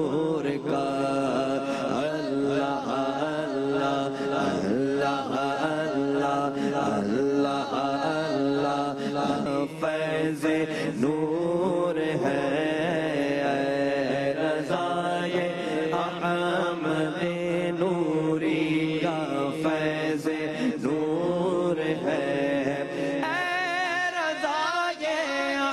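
A man singing a naat, an Urdu devotional song, into a microphone with long, ornamented melodic lines. A steady low drone is held beneath the voice.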